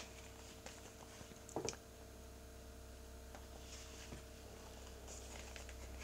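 Faint handling sounds of a printed cardboard disc case (digipak) being turned over and folded open: a sharp click right at the start, a louder rustle with taps about a second and a half in, then a few soft taps, over a steady low hum.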